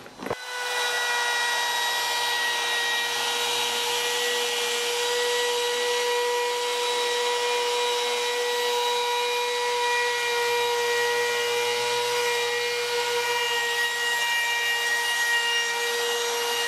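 Bosch compact palm router switched on at the start and running at a steady high whine, with the hiss of the bit trimming along the plywood edge.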